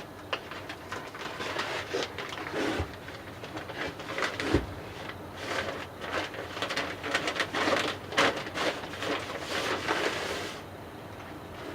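Paper-faced insulation being handled and pressed into place: irregular crinkling and rustling of the paper facing with small clicks, and one sharp knock about four and a half seconds in. The rustling stops shortly before the end.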